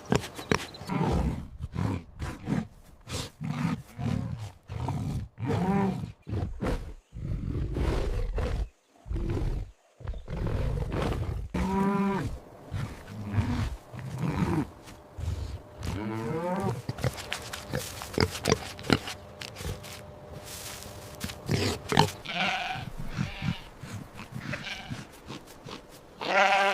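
A string of recorded animal calls: rapid low grunts through the first ten seconds or so, then several separate drawn-out pitched cries and calls.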